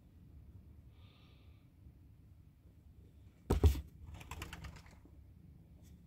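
A single sudden thump about three and a half seconds in, followed by about a second of rapid light ticking and rustling, over a faint low hum.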